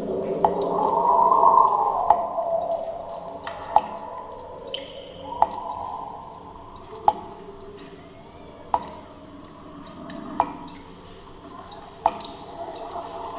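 Water drops plinking into water, eight single drops evenly spaced, over a low eerie drone that swells and fades.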